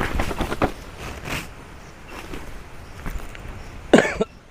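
Foil emergency blanket crinkling as it is picked up and handled, in a few quick rustles early on, then a brief, louder sound about four seconds in.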